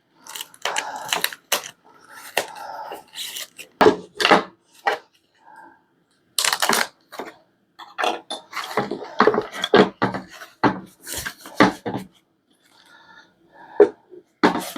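A bike repair stand and its packaging being handled during unboxing: irregular rustling and crinkling with scattered knocks and clicks.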